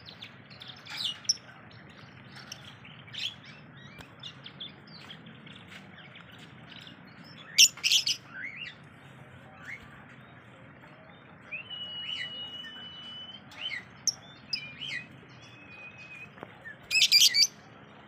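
Blue masked lovebird calling in shrill chirps, loudest in two quick clusters about eight seconds in and near the end, with softer scattered chirps and a held whistle between.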